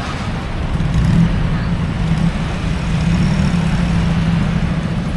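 Street traffic, with a motor vehicle's engine running close by: a steady low hum over road noise that gets louder about a second in.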